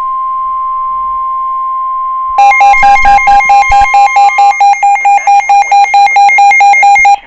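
NOAA Weather Radio's steady 1050 Hz warning alarm tone, announcing a new warning. About two and a half seconds in it gives way to a much louder electronic alert beeping rapidly, about four pulses a second.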